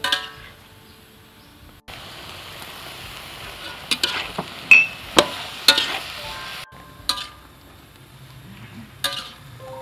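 Beef and cauliflower stir-frying in a wok: a steady sizzle, with the metal spatula scraping and clinking sharply against the pan a few times.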